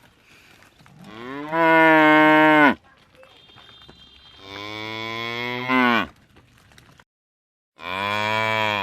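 Buffalo mooing: three long, loud calls a few seconds apart, each held at a steady pitch and dropping slightly at the end, the last one cut off abruptly.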